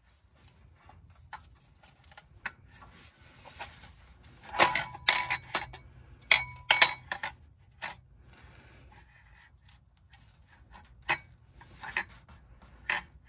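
Steel clutch pressure plate clinking and scraping against the flywheel as it is turned by hand to line up with the dowel pins. A cluster of louder metal clanks, some with a brief ring, comes about five to seven seconds in.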